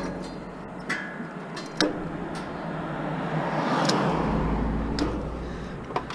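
A vehicle passing on the street, its noise swelling to a peak about four seconds in and then fading, over scattered sharp clicks and snips from cutting a regulator off a heater and handling the metal.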